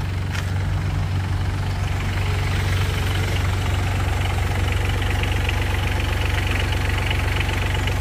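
Rice transplanter's engine running steadily with a fast, even chugging.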